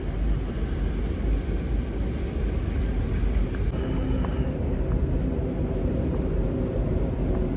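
Diesel locomotive engine running with a steady low rumble and faint steady engine tones. A brief faint hiss comes about four seconds in.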